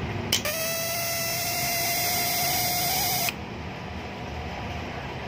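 Rilon Cut 40 plasma cutter: a click, then a steady high whine with hiss for about three seconds that cuts off suddenly.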